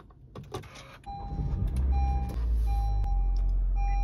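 Honda City engine started by its push button: a few soft clicks, then about a second in the engine cranks, catches and settles into a steady idle. A dashboard warning chime beeps steadily over it, about once a second.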